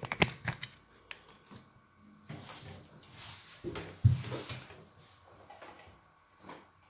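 Handling noises at the base of a built-in kitchen oven: a quick run of clicks at the start, some rustling, and a dull knock about four seconds in.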